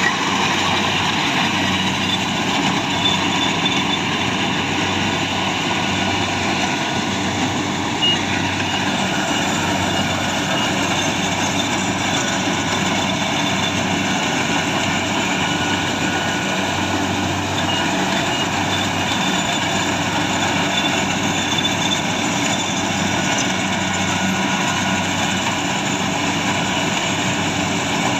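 Rice combine harvester's diesel engine and threshing machinery running steadily, with a couple of faint knocks.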